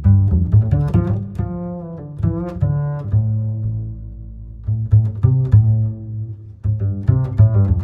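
Background music: short plucked string notes in a bouncy rhythm over held low notes.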